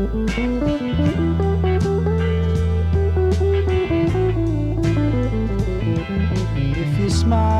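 Background rock music: an instrumental passage led by electric guitar.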